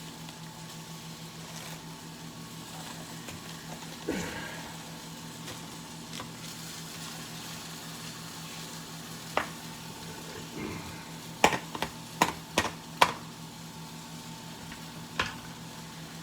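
Floured chicken cutlets searing in hot oil in a carbon steel skillet, a steady sizzle. A few sharp clicks and knocks cut through it, with a quick run of several about two-thirds of the way in.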